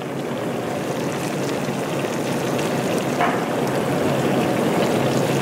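Chicken broth boiling hard in a cast iron skillet of chicken and orzo, a steady bubbling sizzle, with one light tap a little past three seconds in.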